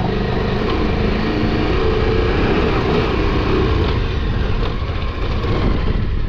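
A KTM adventure motorcycle's engine running steadily under load on a steep, rough off-road climb, mixed with a dense rushing noise.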